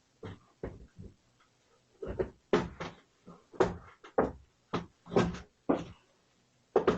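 Moose sniffing and licking at a door, heard close up through a doorbell camera's microphone: an irregular run of short snuffles and wet licks, sparse at first and coming thick and fast from about two seconds in.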